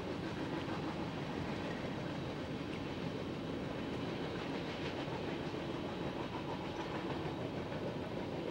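Covered hopper cars of a freight train rolling past, a steady rumble of steel wheels on rail with a few faint clicks.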